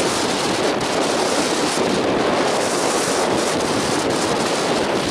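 Strong gusting wind, gusts over 40 mph, buffeting the microphone as a loud, steady rush of noise, likely mixed with choppy water.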